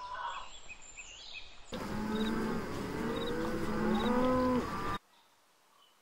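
Cattle mooing: several long, overlapping moos, one gliding in pitch, start suddenly about two seconds in and cut off sharply about a second before the end. Before them there is a quieter stretch with a few faint high chirps.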